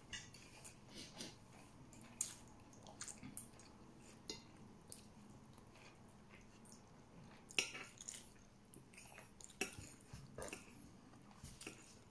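Faint eating by hand: scattered small clicks and taps of fingers picking chicken and rice off a plate, mixed with chewing and lip smacks.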